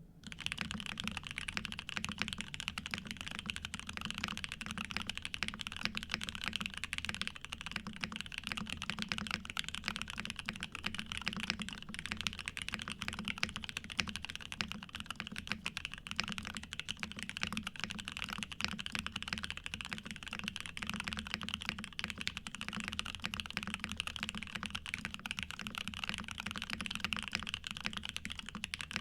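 Continuous fast typing on a Neo80 mechanical keyboard with lubed and filmed Cherry Nixie switches on a POM plate, a dense run of deep, muted keystrokes described as thocky.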